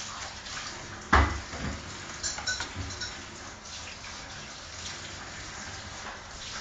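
One sharp thump about a second in, followed by a few lighter knocks and taps over the next second or two, over a steady hiss.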